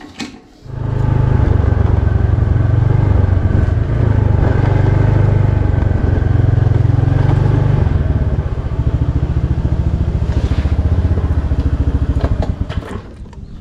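Small automatic motor scooter running as it is ridden, a steady low rumble that cuts off near the end as it stops.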